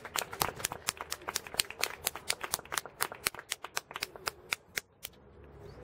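A small audience clapping: a few pairs of hands making sharp, separate claps that thin out and stop about five seconds in.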